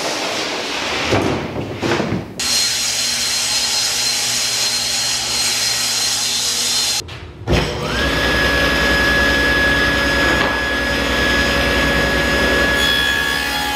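Cabinet table saw running and ripping a sheet of white-faced particleboard: a steady motor hum and blade whine under the hiss of the cut. The first couple of seconds hold knocks and scrapes of the sheet being handled onto the saw.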